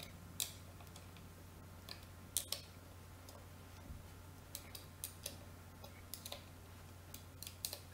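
Faint, irregular clicks of an Allen key turning in and being refitted to the bolt heads as chair-leg bolts are tightened, over a low steady hum.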